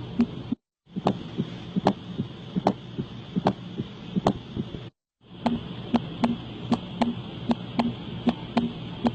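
Recorded heart sounds: three short clips of a beating heart, split by two brief silences. The first and last clips beat fast and regular, about two and a half beats a second, each beat with a sharp click. The middle clip beats more slowly, in lub-dub pairs. A steady hiss runs behind all three.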